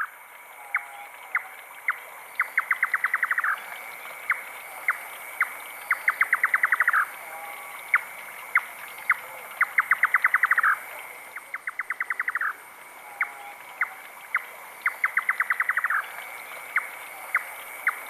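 Indian nightjar calling its 'chuk-chuk-chuk-chuk-rrr' song: a few spaced, sharp 'chuk' notes that speed up into a fast rattling run, likened to a stone gliding over a frozen pond. The phrase repeats about every three and a half seconds.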